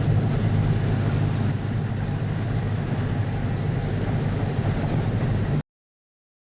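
Steady, loud low rumble, like a vehicle running, that cuts off abruptly about five and a half seconds in.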